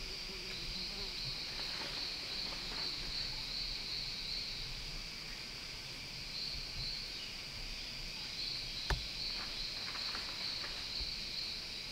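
Jungle insects, crickets or cicada-like, trilling in a steady high-pitched chorus that pulses. A single sharp knock about nine seconds in, followed by a few lighter clicks.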